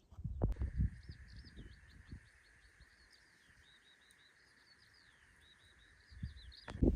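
Small birds chirping and twittering in a run of quick wavering calls, over a steady high hum. Low gusts of wind rumble on the microphone in the first two seconds and again near the end.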